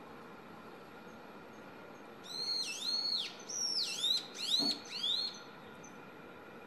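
Young brown-eared bulbul singing: starting about two seconds in, a loud three-second run of sharp whistled notes that dip in pitch and swing back up, in two groups, over a steady faint hum.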